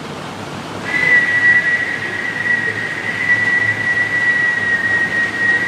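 A person whistling one long, steady high note that starts about a second in and is held without a break.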